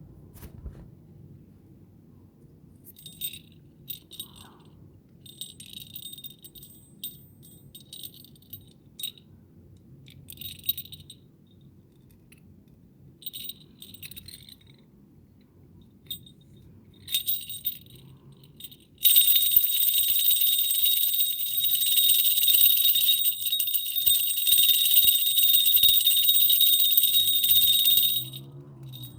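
A pair of hand-made metal falconry hawk bells jingling, high and bright, in short separate shakes. About two-thirds of the way in they are shaken without pause, ringing loudly, and they stop abruptly shortly before the end.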